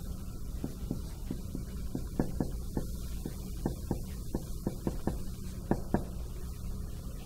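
Dry-erase marker writing on a whiteboard: a quick run of short taps and strokes over a steady low hum.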